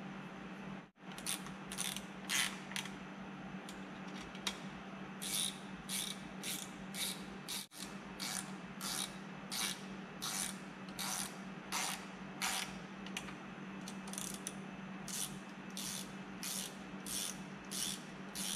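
Hand ratchet clicking in quick back-and-forth strokes, about two a second, running bolts into an outboard motor's water pump housing.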